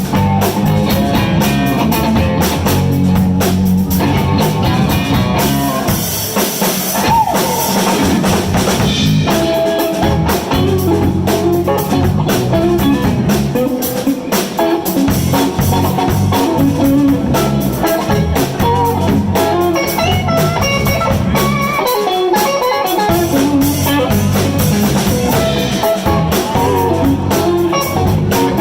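Live blues band playing, with guitar over a drum kit.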